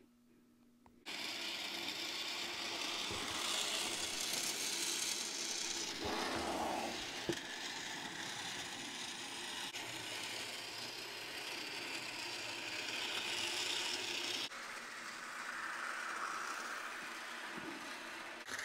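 Bachmann HO scale DeWitt Clinton model train running around a loop of track: the small electric motor in the tender whirring and the wheels rolling on the rails, swelling and fading as it circles. It starts about a second in, and there is one faint click partway through.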